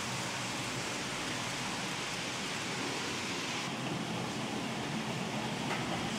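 N-scale model trains running, with a steady rushing hiss of small wheels and motors on the track. The sound turns duller a little under four seconds in.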